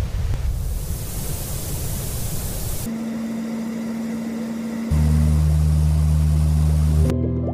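Sound machine playing white-noise-type sounds that switch abruptly: a low rumbling hiss, then about three seconds in a steadier hiss with a single low tone, then about five seconds in a louder low hum under the hiss.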